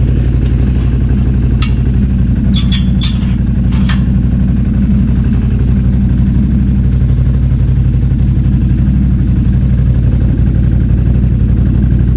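An engine idling steadily, with a few sharp metallic clicks and knocks about two to four seconds in.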